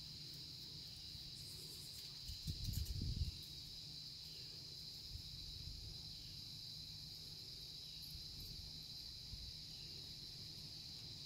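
Steady high-pitched insect chorus, one unbroken droning trill, over a low steady hum. A brief low rumble comes about two and a half seconds in and lasts about a second.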